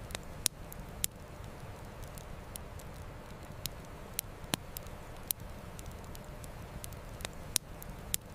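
Campfire crackling, with irregular sharp pops and snaps, a few louder than the rest, over a steady low rush of river water.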